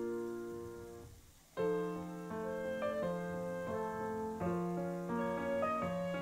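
Background piano music; it fades almost away about a second in, then starts again with notes struck one after another.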